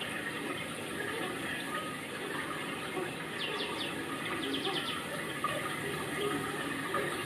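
Steady rushing noise of running water. Midway, a bird gives two quick runs of high chirps.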